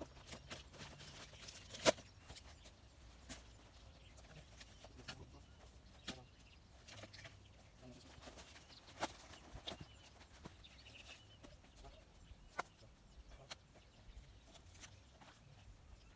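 Dry firewood branches knocking and clattering now and then as they are handled and dropped onto a woodpile: a few scattered sharp knocks, the loudest about two seconds in, over a faint low rumble.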